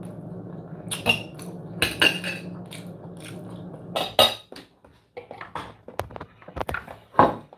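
Metal fork and knife clinking and scraping on a ceramic plate while eating, a series of short sharp clicks and knocks. A steady low hum runs underneath and stops about five seconds in.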